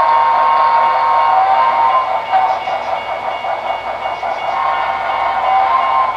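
HO-scale Broadway Limited model of a Texas & Pacific steam locomotive with Paragon 3 onboard sound, running with its train. A steady sound of several held high tones, which wavers and gets a little quieter midway.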